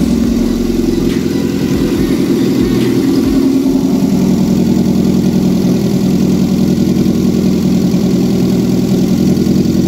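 Renault 12 1289 cc four-cylinder petrol engine being test-run out of the vehicle, idling steadily. The speed wavers up and down in the first few seconds, then settles.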